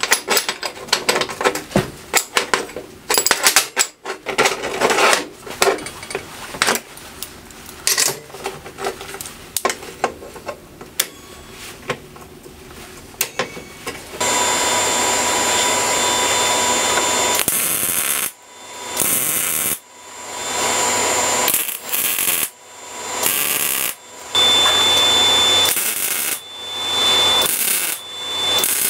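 Steel bars and square nuts clinking and clanking as they are handled and laid out on a steel workbench. From about halfway through, a MIG welder crackles in a run of about seven short welds, each a second or so long.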